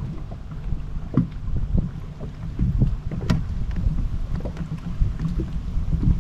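Water lapping and slapping against a boat hull in irregular small knocks, over a steady wind rumble on the microphone.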